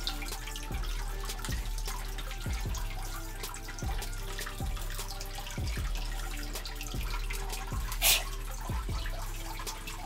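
Water dripping into water about once a second, over a steady low hum, with one sharp click about eight seconds in.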